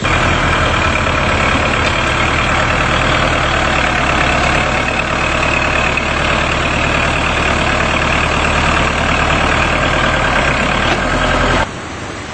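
Tractor diesel engine running steadily as its front blade pushes mud along the road. Near the end it cuts off abruptly to the quieter, even rush of muddy floodwater.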